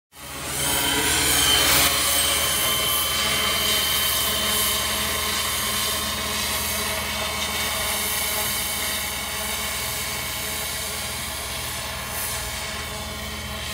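Radio-controlled 600-size scale MD500E helicopter with a multi-blade rotor head in flight: a steady motor whine and rotor hum, with a high whistling tone that fades out about halfway through. The sound gets slightly quieter toward the end.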